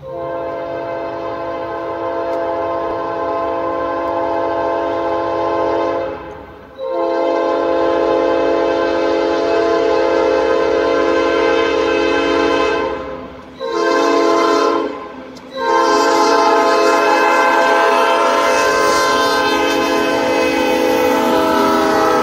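Diesel freight locomotive's multi-chime air horn blowing loudly in four blasts: long, long, short, long. This is the standard warning sounded on approach to a public road grade crossing.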